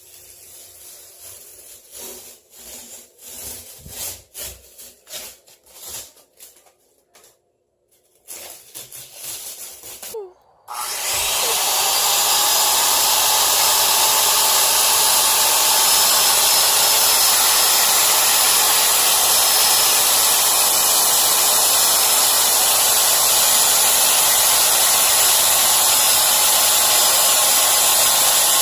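Scattered knocks and rubbing, then about eleven seconds in an electric power tool's motor spins up with a rising whine and runs at a steady, loud whir to the end.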